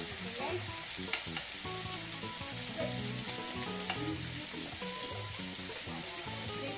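Chicken pieces sizzling in a little hot oil in a stainless steel pan, a steady frying hiss, while they are turned with metal tongs; light clicks of the tongs against the pan about a second in and again near four seconds.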